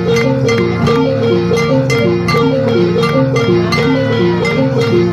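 Music: a repeating melodic figure of short plucked or struck notes over a steady percussive beat.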